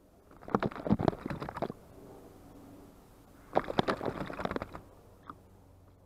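Eurasian jay bathing in a shallow bin-lid bird bath, beating its wings in the water in two bouts of rapid splashing, the first just after the start and the second about three and a half seconds in.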